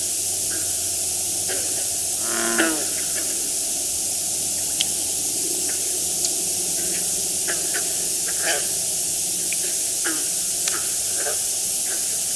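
Frogs giving snore-like calls over a steady hiss: one longer, rattling call about two seconds in, and short calls scattered through the rest.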